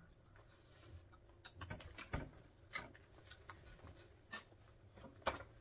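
Quiet eating sounds: chewing and mouth clicks mixed with light taps of a spoon and fork on bowls, as scattered short sharp clicks.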